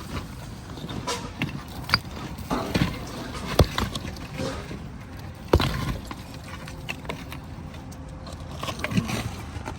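Scattered sharp knocks and clatters of hand work on a roof, the loudest about three and a half and five and a half seconds in.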